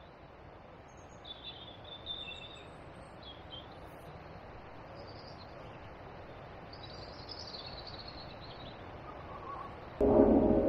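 Birds chirping in short, scattered calls over a steady outdoor background hiss. Loud music cuts in suddenly near the end.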